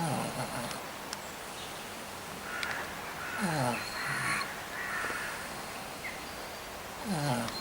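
Pig snoring in its sleep: three snores about three and a half seconds apart, each falling in pitch. Birds call faintly in the background.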